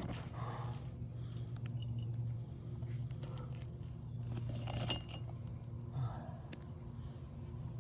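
Roofing nails clinking and jingling as they are handled, with a few light, sharp metallic clicks, over a steady low hum.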